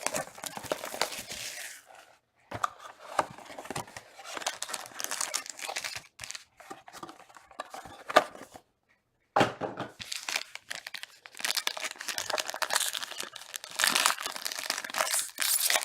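Plastic shrink wrap being torn off a trading-card box and crinkled, in irregular crackling rips with two brief pauses.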